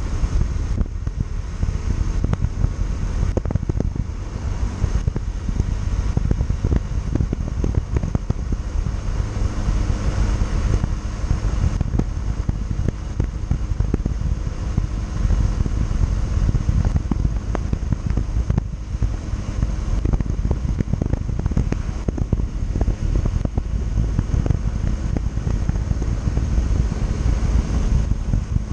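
Wind buffeting the microphone on a moving motorcycle. A Yamaha Factor 150's single-cylinder four-stroke engine runs steadily underneath.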